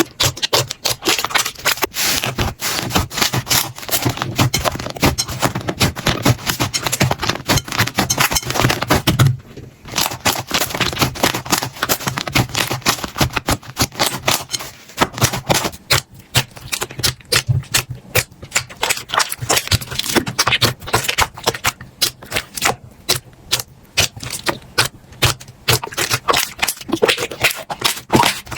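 Slime being squished and pressed by hands, a dense run of crackling clicks and pops, with a brief break about ten seconds in.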